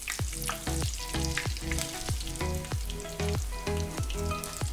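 Breaded chicken-potato cutlets sizzling and crackling as they shallow-fry in hot oil, under background music with a steady beat of about three notes a second.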